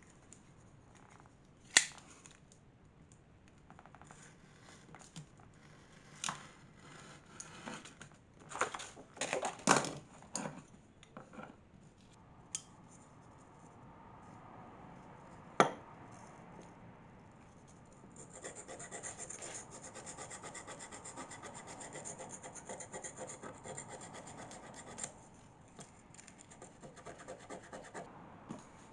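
Steel pliers being hand-sanded with a small piece of silicon carbide abrasive paper: quick back-and-forth rubbing and scratching, densest in the second half. Scattered sharp clicks and knocks come from handling the pliers and paper, the loudest at about two seconds and again past the middle.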